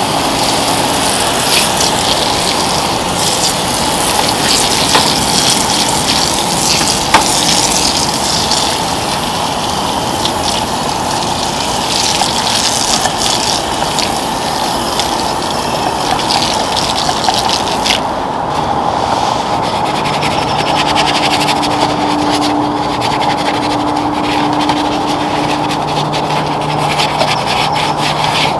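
Pressurized pump foam sprayer hissing steadily as it lays cleaner foam over an engine bay. Toward the end the hiss gives way to a brush scrubbing through the foam.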